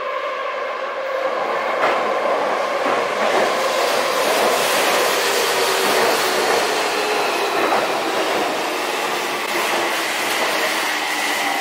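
Electric commuter train running on the rails: a steady rumble and hiss of the wheels with occasional clacks over the rail joints.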